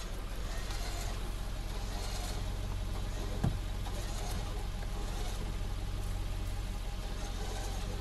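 Vehicle engine idling with a steady, even low hum, and one sharp knock about three and a half seconds in.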